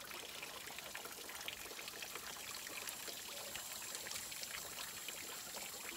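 Outdoor shower running, a steady hiss of water pouring down onto a person washing under it.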